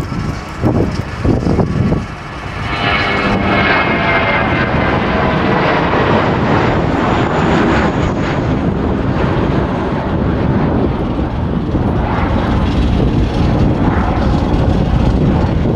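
Wizz Air Airbus A320-family jet airliner taking off and climbing out under takeoff thrust: a loud, steady jet roar that swells about two seconds in, with a thin whine riding on top.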